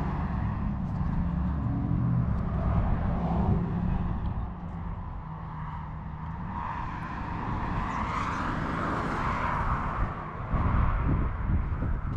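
Outdoor engine noise of a passing vehicle: a steady low rumble, with a swell that builds about six or seven seconds in, peaks, and fades away a few seconds later.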